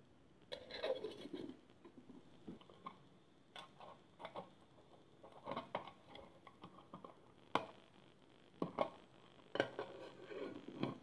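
Stainless steel camping pots and a perforated lid being handled: the lid lifted off, the nested pots taken apart and set down on a woven cloth, with scattered light metal clinks and scrapes and a few sharper knocks in the second half.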